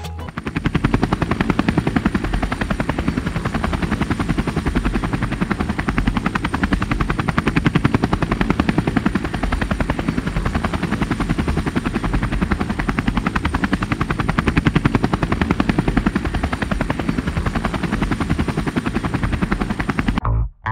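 A steady, fast mechanical chopping clatter, a sound effect, with a thin high whine above it; it cuts off abruptly just before the end.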